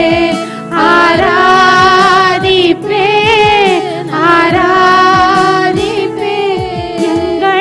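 A woman singing a Tamil Christian worship song into a microphone, in long held phrases with vibrato, over a steady instrumental backing.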